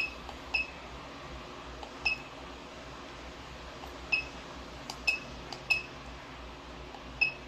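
CTG-9000FN coating thickness gauge giving short, high key beeps as its buttons are pressed. There are about seven beeps at irregular intervals while a calibration value is keyed in, with a few faint clicks among them.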